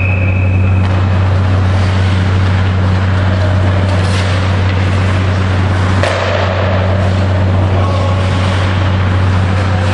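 Loud, steady low hum with an even hiss over it in an ice rink, with faint sounds of the hockey play under it.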